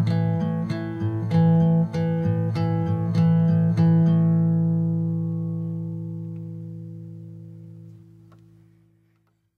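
Closing bars of a song on acoustic guitar: rhythmic strummed chords, then a final chord that rings on from a little before halfway through and fades away to silence near the end.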